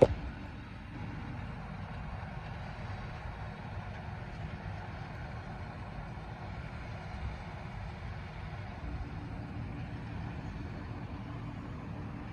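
Farm tractor running steadily while baling hay, a low, even engine drone with machinery noise. A single sharp knock sounds right at the start.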